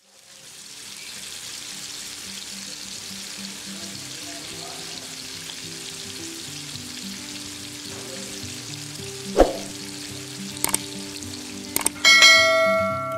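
Masala-coated fish slices shallow-frying in hot oil, with a steady sizzle. A few sharp clicks come near the end, then a loud ringing chime about twelve seconds in, the sound effect of a subscribe-button animation.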